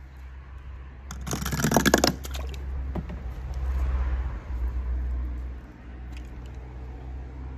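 A die-cast toy car rattling and scraping along a ridged popsicle-stick ramp, a burst of fast ticks lasting under a second about a second in, over a steady low rumble.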